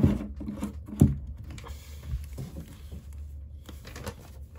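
Handling noises: two sharp knocks about a second apart, then lighter scattered taps, over a steady low hum.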